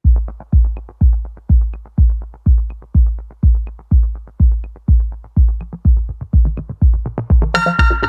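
Electronic background music: a steady pounding kick-drum beat at about two beats a second, with synth chords joining near the end.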